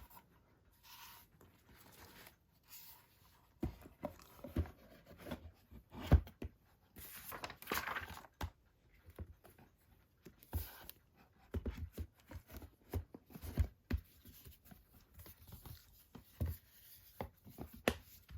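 Blu-ray packaging being handled: scattered light knocks, taps and rustles of cardboard and plastic, with a longer rustle about seven to eight seconds in.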